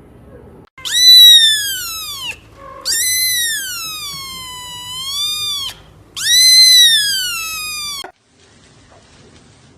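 A cat meowing loudly in three long, drawn-out calls, each rising and then falling in pitch; the middle call is the longest and dips and rises again before it ends.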